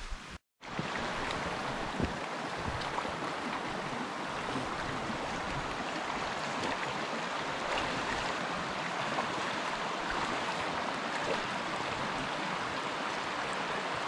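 Small snow-bordered mountain stream rushing steadily, close to the microphone. It starts after a brief dropout about half a second in.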